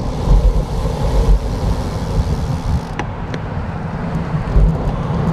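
Steady road-traffic noise and low rumble heard while riding a bicycle along a road, with two short clicks about three seconds in.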